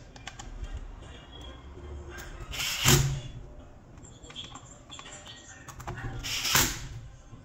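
Handling noise of a hand screwdriver and the plastic housing of a cordless impact wrench being worked on a bench, with two louder brief scraping knocks, one about three seconds in and one about six and a half seconds in.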